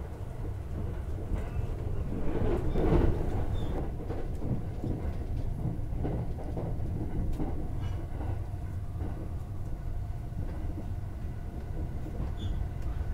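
JR West Thunderbird limited express electric train running at speed, heard from inside a passenger car: a steady low rumble of wheels on rail with occasional clicks, swelling louder about two to three seconds in.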